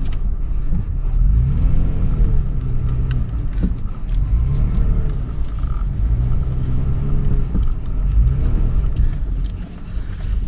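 2013 Toyota 4Runner's V6 engine revving up and easing back several times over a steady low rumble while driving in soft dune sand.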